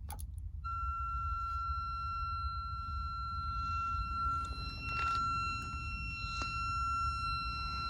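Kenwood TS-430S ham transceiver giving off a steady high-pitched tone with overtones, at one unchanging pitch, after a click at the start. It comes on when the radio is powered up and switched on, and is the sign of a fault in the set.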